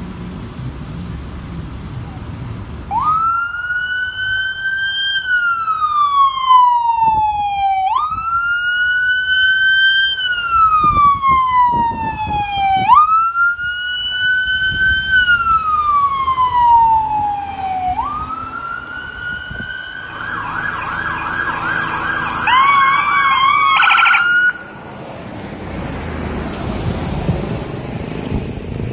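Ambulance's electronic siren in a slow wail, three long cycles that each jump up quickly and slide back down. It then switches to a fast pulsing yelp and a quicker warble before cutting off suddenly. Vehicle and road noise runs before the siren starts and after it stops.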